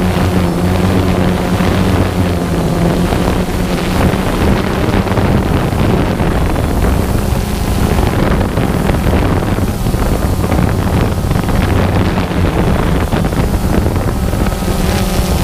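Multirotor drone's motors and propellers humming steadily, with wind rushing over the microphone.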